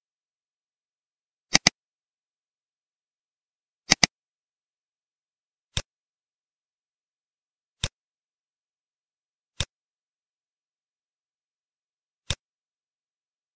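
Computer mouse clicks against silence: two quick double-clicks, then four single clicks a couple of seconds apart.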